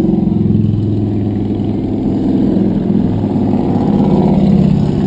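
A motor vehicle engine running steadily, its pitch shifting a little now and then.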